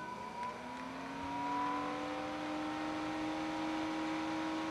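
Sunon KD1208PTS1-6 12 V DC cooling fan, running from a PC power supply, spinning up about half a second in. Its hum rises in pitch and then holds steady at full speed, noisy.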